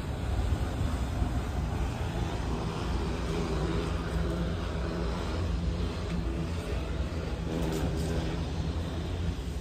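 Steady low rumble of outdoor background noise with a faint engine-like hum through the middle.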